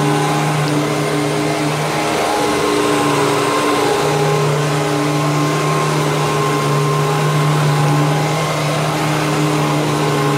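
Hoover WindTunnel twin-chamber upright vacuum cleaner running on carpet: a steady motor hum over rushing airflow, the hum faltering briefly about two seconds in before settling again.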